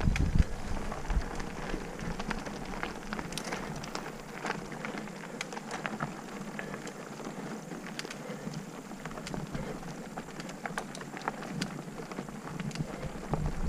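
Mountain bike tyres rolling over a dirt and gravel singletrack: a steady crunching crackle with many scattered sharp ticks of small stones and twigs.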